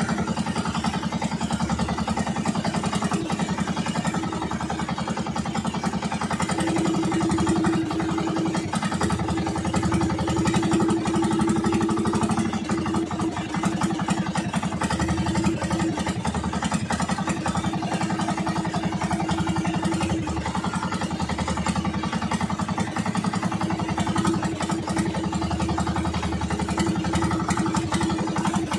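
Small outrigger boat's engine running steadily while the boat is underway, a continuous motor hum with a fast, even firing pulse.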